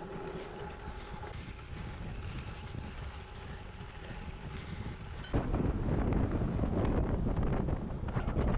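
Noise of riding a bicycle: tyres rolling with wind on the microphone. About five seconds in it jumps suddenly to a much louder, rougher rumble, heavy in the lows, as the wind buffeting grows.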